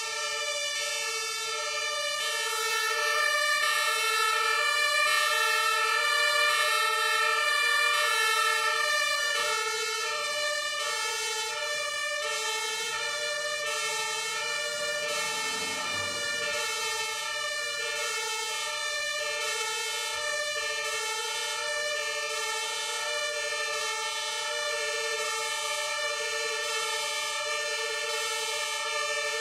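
German two-tone fire-engine siren (Martinshorn) sounding continuously, switching steadily between a high and a low pitch. A vehicle drives past about halfway through.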